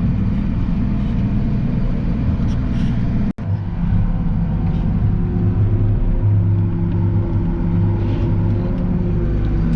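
Truck engine running steadily while driving under load. The sound cuts out for an instant about three and a half seconds in, and a steady hum joins the engine drone after that.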